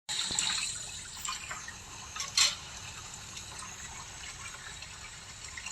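Water running steadily, with scattered small knocks and one louder clack about two and a half seconds in.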